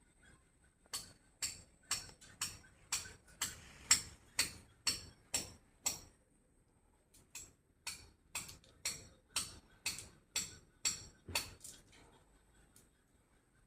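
Sharp, evenly spaced taps, about two a second, in two runs of about ten, with a short pause between them.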